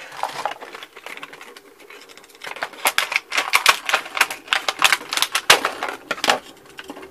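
A lure's packaging being ripped open by hand: a quick run of tearing and crackling, sparse at first and heaviest from about two and a half to six seconds in.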